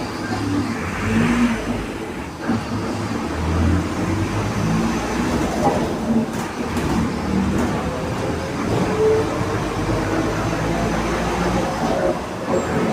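Mercedes-Benz LO 916 bus running under way: its 4.8-litre four-cylinder OM 924 LA diesel drones, its pitch rising and falling, with the differential growling.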